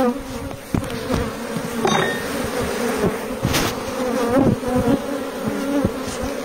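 Honeybees buzzing around an open hive: a steady hum from the mass of bees on a lifted comb frame, with single bees flying close by in short rising and falling buzzes, and a few light knocks.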